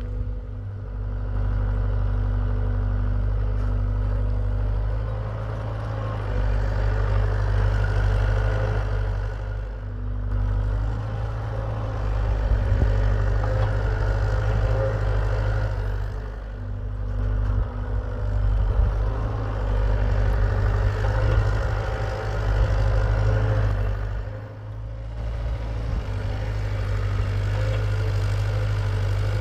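Hitachi EX75UR excavator's diesel engine running under changing load while digging. It swells and eases, with brief dips about every six to eight seconds.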